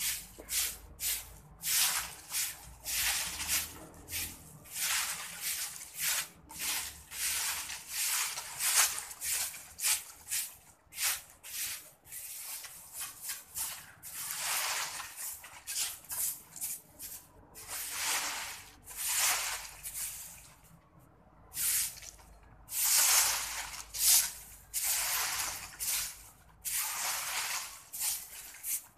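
Repeated scrubbing strokes on a rough concrete floor, each a short scratchy hiss, coming in quick irregular runs with a brief pause a little past two-thirds of the way in.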